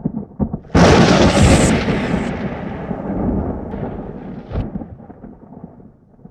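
Cinematic logo-reveal sound effect: a few soft knocks, then a sudden loud boom about a second in that slowly fades, with another smaller hit about four and a half seconds in.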